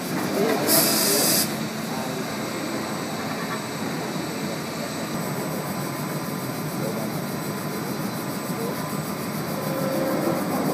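Panama Canal electric towing locomotives ('mules') running on their rails beside the ship, a steady mechanical noise. A brief loud hiss comes about a second in.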